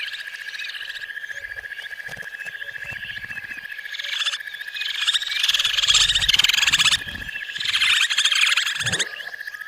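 Outdoor wildlife chorus: a steady high, rapidly pulsing trill throughout, with birds chirping, and louder rasping trilled calls from about four to nine seconds in.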